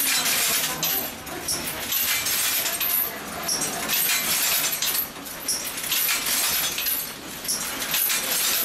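A ghost-train scare effect repeating in a loop: a hissing burst about every two seconds, each with a short high blip before it, over a faint steady high whine.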